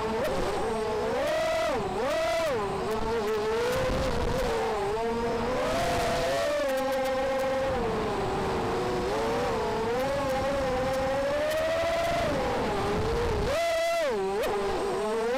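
Brushless motors and propellers of a ZMR250 racing quadcopter (T-Motor 1806 2300KV) whining, their pitch swooping up and down with the throttle in flight, with wind rushing over the onboard camera's microphone.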